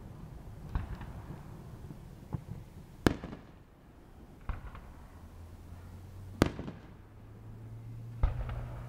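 Fireworks going off: about seven sharp bangs at irregular gaps, the loudest about three seconds in and again past six seconds. A low steady hum comes in about halfway.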